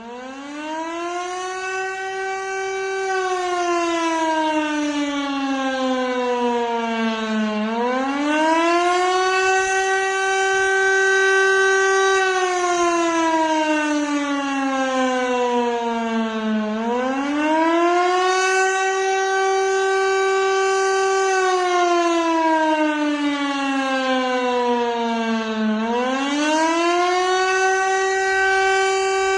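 Civil defence siren sounding the Austrian "Alarm" signal, a rising and falling wail warning of imminent danger. It winds up from a low pitch at the start, then goes through about three cycles, each a quick rise, a held high note and a slow fall, roughly every nine seconds.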